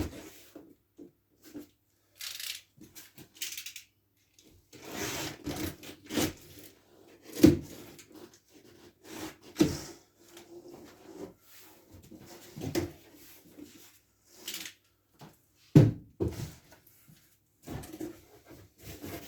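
Cardboard shipping boxes being handled and opened: irregular rubbing and scraping of cardboard, with several dull thumps, the loudest about seven and a half, ten and sixteen seconds in.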